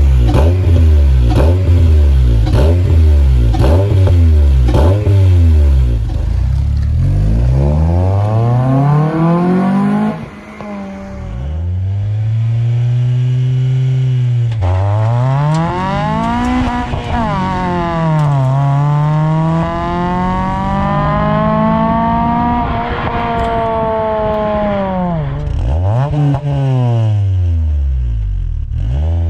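Honda Accord Euro CL9's 2.4-litre four-cylinder engine revving through a freshly fitted Invidia Q300 cat-back exhaust. It gives quick throttle blips about once a second, then several long climbs in pitch that drop off suddenly, then more blips near the end.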